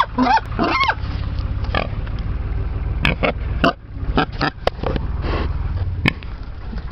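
Pigs grunting close up, a string of short separate grunts, some with a rising-falling pitch in the first second. A steady low rumble runs underneath.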